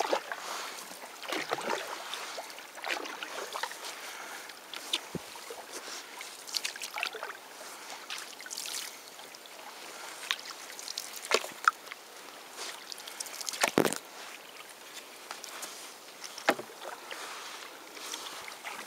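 Water splashing and lapping against the side of a canoe under way, coming in irregular swells, with a few sharp knocks on the hull, the loudest about two-thirds of the way through.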